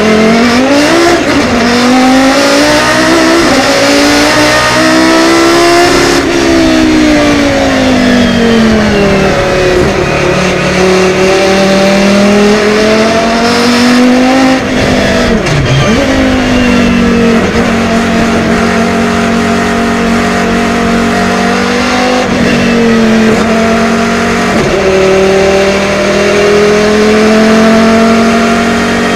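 Volvo 850 BTCC race car's naturally aspirated 2-litre five-cylinder engine, loud on track. The revs climb for about six seconds, fall away, then climb again, with a sharp dip and recovery about fifteen seconds in, and hold nearly steady for the last dozen seconds.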